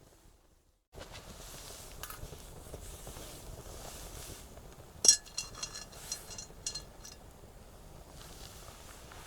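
Metal cookware clinking: one sharp ringing clink about five seconds in, then several lighter clinks over the next second and a half. About a second of silence at the start, then faint outdoor background.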